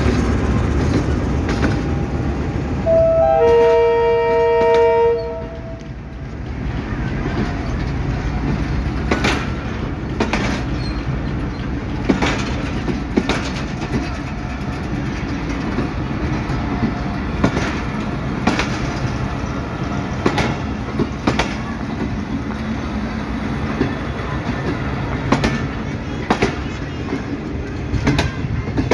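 Pakistan Railways passenger coaches rolling past, wheels clicking over rail joints about once a second over a steady rumble. Three seconds in, a locomotive horn sounds one loud blast of about two and a half seconds.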